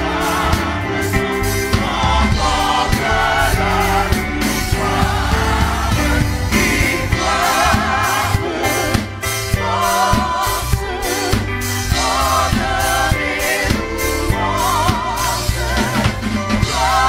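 Choir singing a gospel hymn with held, wavering vibrato notes, over a steady band backing of bass and drum kit.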